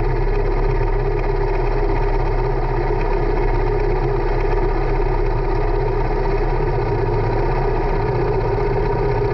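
Kart engine idling steadily at a standstill.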